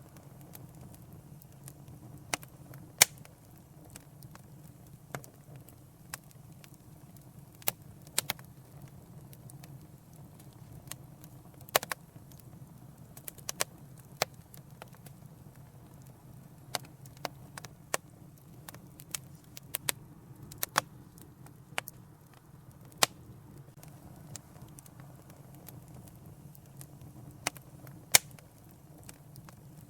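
Wood fire in a fireplace crackling, with irregular sharp pops and snaps, a few much louder than the rest, over a steady low rumble.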